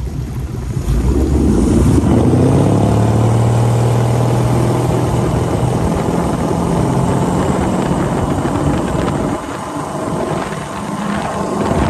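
The 1940 Boyce & Sons race boat's V8 engine picks up speed about a second in, then runs hard and steady under the rush of wake and wind. It eases slightly near the end.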